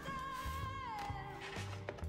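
Background music: a song with a sung melody that glides downward about a second in, over a steady bass line.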